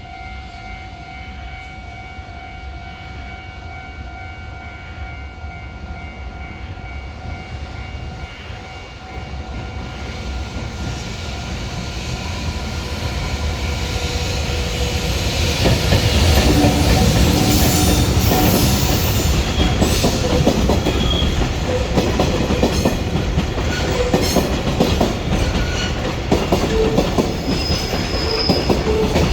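Freight train hauled by an EH500 electric locomotive, growing louder as it approaches over the first half, then passing with a rhythmic clickety-clack of wagon wheels over rail joints and brief wheel squeals.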